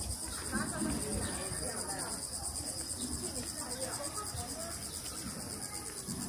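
Cicadas in the trees droning steadily, a high, fast-pulsing buzz, over a low background rumble of the street.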